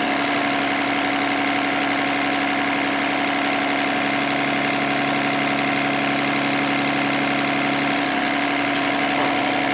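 Emissions-deleted 6.7 Cummins inline-six turbo diesel idling steadily while it warms up with a newly fitted thermostat.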